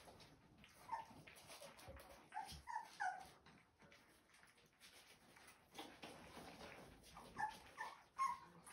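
Young Rottweiler puppies whimpering in short, high squeaks, some falling in pitch: one about a second in, a quick run of three a little later, and another run near the end.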